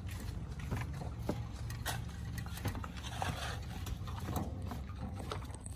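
Manual building work: irregular scrapes and knocks of a hoe dragged through sand and a wheelbarrow being moved, over a steady low rumble.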